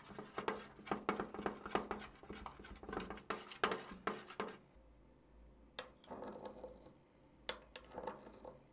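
Thin metal whisk stirring honey into water in a clear container: a quick, uneven run of ticks and scrapes against the container that stops about four and a half seconds in. Then a metal spoon clinks sharply with a short ring against a ceramic dish, three times.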